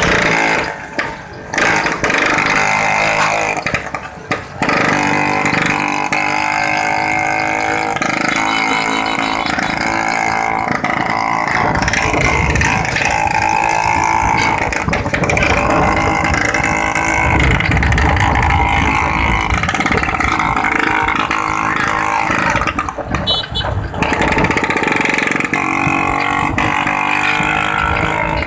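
Two-stroke Vespa scooter engines running steadily on the move, with the brief dips in level of a moving vehicle's recording.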